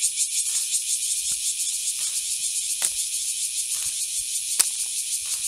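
Loud, steady insect chorus with a fast pulsing buzz, with two sharp clicks about three and four and a half seconds in.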